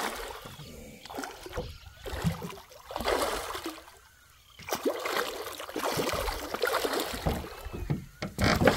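Water splashing and sloshing in irregular bursts around a small boat as a hooked dorado is fought close by, with a brief near-quiet gap about four seconds in.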